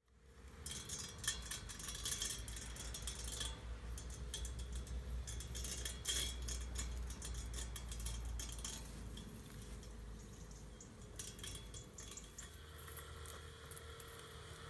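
Husqvarna Automower 450X robotic lawn mower running with a strange metallic rattle: fast, irregular clinks over a low hum and a steady whine, thinning out after about nine seconds. The rattle is a fault in the mower that its owners could not fix themselves.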